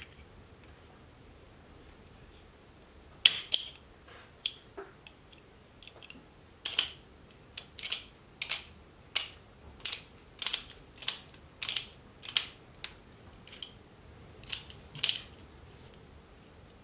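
Sharp metallic clicks, about one or two a second from about three seconds in, from the steel parts of a handmade ratchet screwdriver being fitted together and worked by hand.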